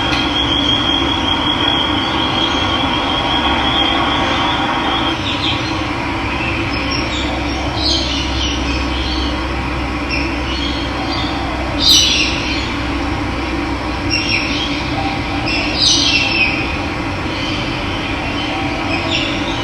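Steady rush of running water with birds calling over it: a rapid high trill for the first few seconds, then short bright calls at intervals, the loudest about twelve seconds in.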